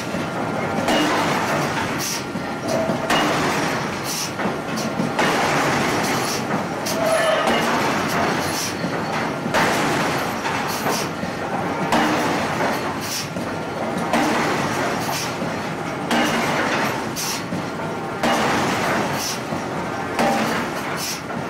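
Heavy power forging hammer striking a red-hot steel flange blank held in a ring die, in a steady run of blows about once a second, each a sharp metallic impact.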